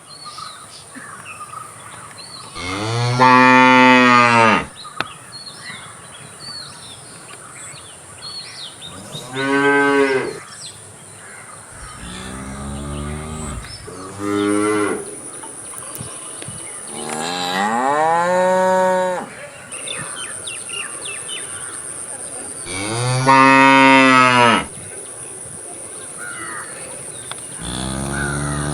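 Cattle mooing: about seven long moos a few seconds apart, each lasting one to two seconds, some lower and some higher in pitch.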